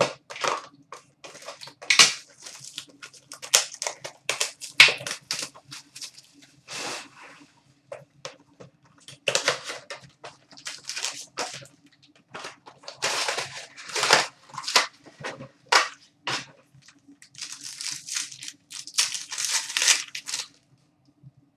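Trading-card pack wrappers being torn open and crinkled, with cards handled: irregular crackling and tearing, busiest in two stretches in the middle and near the end.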